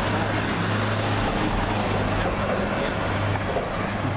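Street traffic noise with a motor vehicle's engine running close by, a steady low hum under a wide rushing noise. The sound cuts off suddenly at the end.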